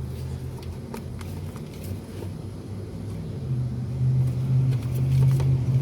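A low, steady engine-like rumble that grows louder over the last couple of seconds, with a few faint clicks.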